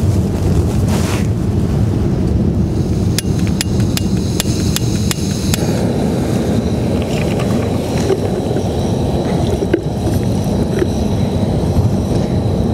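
Gusty wind buffeting the microphone over sea surf. A few seconds in comes a run of about seven sharp clicks from hands working a small canister gas camping stove.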